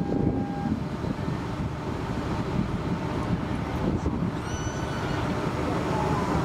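Steady low rumble of outdoor background noise, with a short high tone at the very start and another faint high tone about four and a half seconds in.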